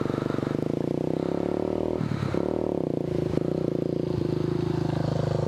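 A single-cylinder four-stroke dual-sport motorcycle engine idling steadily close by. A second dirt bike rides up toward it, its engine note swelling about two seconds in and then dropping near the end as the rider lets off the throttle for the quick-stop drill.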